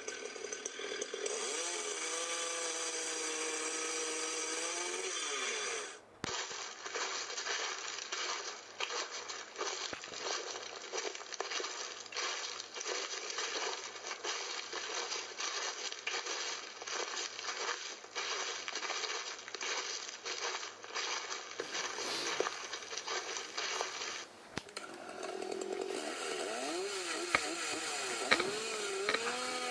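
Homelite XL12 two-stroke chainsaws running in spliced recordings. The engine revs up and back down, then switches abruptly to about eighteen seconds of steady high-speed running full of crackle. Near the end it revs up and down again.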